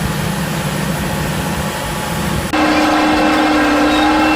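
Heavy diesel machinery running with a rough low rumble. About two and a half seconds in, a cut brings in a louder, steady, high-pitched engine drone that holds one note.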